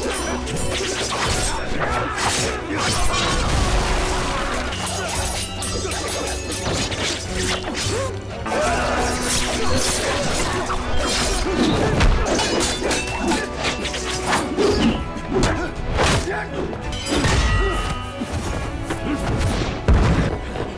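Martial-arts film fight soundtrack: a dramatic score under a dense run of punch and kick hit effects and crashes, many strikes landing in quick succession.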